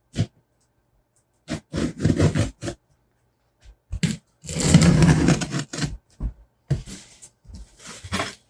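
Cardboard shipping box being opened and handled: cardboard scraping and rustling in several separate bursts, the longest lasting over a second about halfway through.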